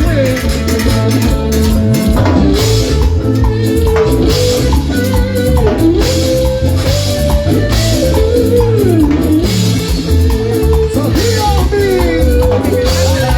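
A band playing Latin dance music: drum kit and bass keep a steady beat under a lead melody that slides and bends in pitch.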